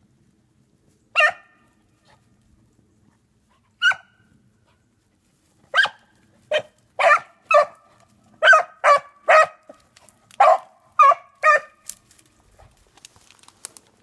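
A single beagle hound barking while it runs a trail: two lone barks, then from about six seconds in a quick string of about ten barks.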